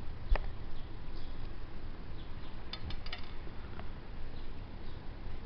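Small metal lock parts clicking and clinking: a single click shortly in, a quick run of clicks about halfway through and one more soon after, as pins are fitted back into a Mottura Champions C28 multipoint lock cylinder.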